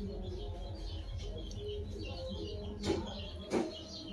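Birds chirping in the background, with two short, louder sounds near the end.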